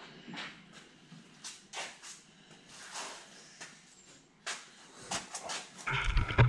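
A few scattered light knocks and clicks of someone moving about and handling things on a concrete shop floor. Near the end comes a louder, deeper rumble and clunking as the camera is picked up and handled.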